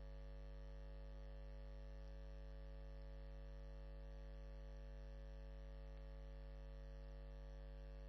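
Steady low electrical hum with evenly spaced overtones and nothing else; no strokes of the press are heard.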